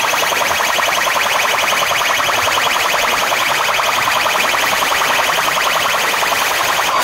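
Loud electronic DJ music from a truck-mounted sound system, a fast, even pulsing pattern sitting high in pitch with little bass; it changes abruptly at the very end.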